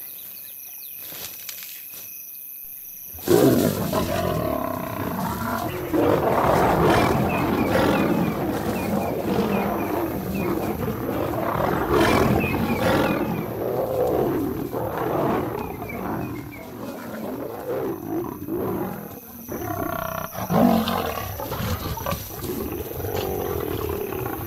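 Lions snarling and growling in a fight, bursting in suddenly about three seconds in and going on in a dense, overlapping mass of calls. It is the sound of lionesses defending their cubs against an attacking nomad male. Before the fight breaks out, crickets chirp faintly.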